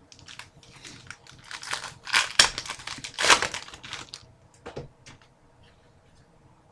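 Hockey trading cards and their packaging being handled, with a run of rustling and crinkling that is loudest in the middle, then a few light clicks.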